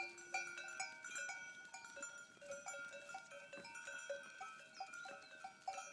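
Bells on a herd of goats clinking and clanking irregularly as the goats walk, faint.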